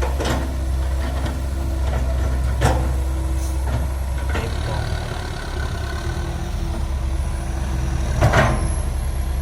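Heavy diesel engine of earthmoving machinery running steadily, with a few sharp knocks over it; the loudest comes about eight seconds in.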